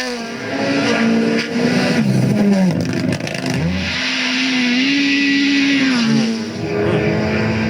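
Rally car engine at high revs, its pitch climbing and dropping sharply as the driver shifts and lifts off, then holding steady with another brief dip near the end.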